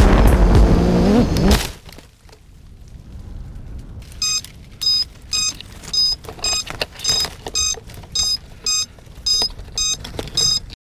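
Blackout 360 racing quadcopter's motors and propellers running loud with a rising pitch, then cutting off abruptly less than two seconds in as it crashes into a bush. After a lull, the downed quadcopter's beeper sounds short, even beeps, about two a second.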